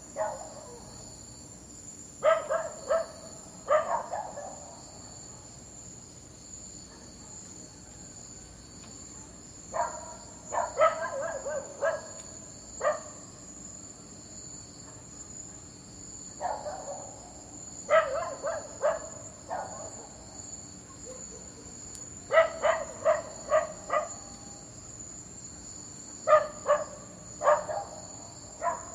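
A dog barking in quick runs of three to five barks, the runs coming every few seconds. A steady high-pitched tone runs underneath throughout.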